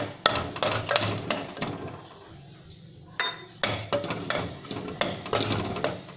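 Wooden spatula knocking and scraping against an earthenware clay pot while stirring a frying tempering of cumin seeds and green chillies. The knocks come in irregular clusters, with a quieter pause about two seconds in.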